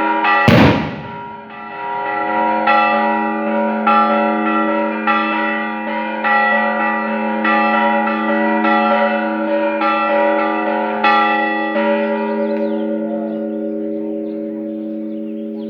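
Church bells rung in quick repeated strokes, a little under two a second, over a steady ringing hum; a loud sharp crack about half a second in. The strokes stop about twelve seconds in and the bells ring on, fading.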